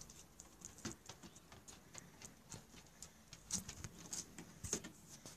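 Faint, irregular light clicks and taps, a few a second: a dog's claws tapping on a hard surface as it moves about.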